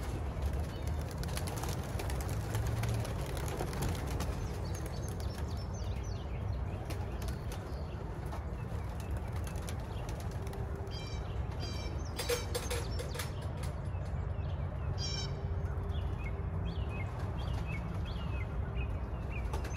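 Racing pigeons' wings flapping as the birds fly about the loft, over a steady low background rumble. From about halfway through, small birds chirp in short, falling notes.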